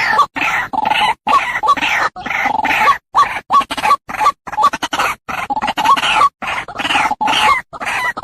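White-breasted waterhen calling: loud repeated calls in quick succession, several a second, broken by short abrupt gaps.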